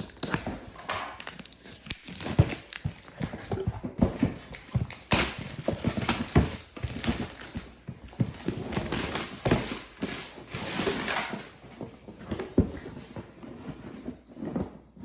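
Cardboard product box being handled and worked open: irregular knocks, taps and scraping rustles.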